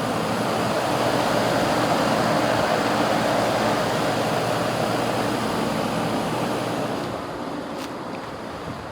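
Outdoor heat pump unit running: a steady rush of air from its condenser fan with a low compressor hum underneath, fading about seven seconds in.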